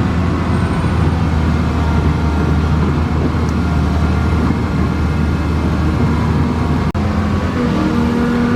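Cat 320C excavator's diesel engine running steadily. The sound cuts out for an instant about seven seconds in, and a steadier, more even tone sets in just after.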